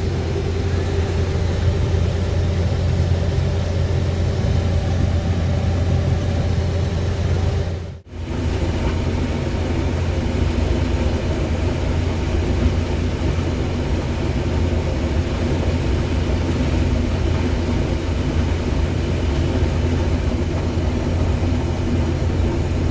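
Diesel engine of corn-harvest machinery running steadily under load, with a deep steady hum. The sound cuts out briefly about eight seconds in.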